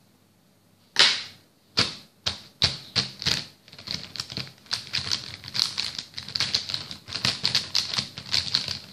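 Plastic marker pens clicking and clattering against each other as a hand rummages through them. A sharp click about a second in, then a quick, uneven run of taps.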